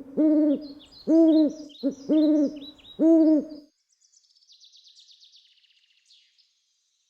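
Birdsong: a bird's low hooting call, repeated four times in the first three and a half seconds, with small birds chirping high above it. A songbird's high, falling trill follows.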